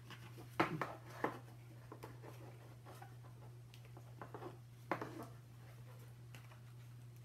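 Cardboard craft pieces being handled and fitted together by hand on a wooden tabletop: light rustling and scraping, with three sharper knocks, twice in the first second and a half and once about five seconds in.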